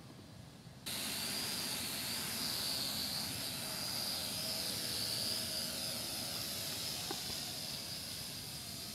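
Small electric quadcopter's motors and propellers whining in flight, starting abruptly about a second in. The high whine wavers a little in pitch as the motors change speed.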